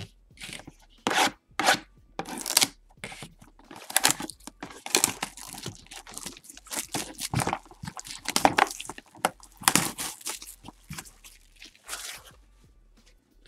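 A sealed box of trading cards being torn open by hand: irregular ripping and crinkling of its wrapper and packaging in many short bursts.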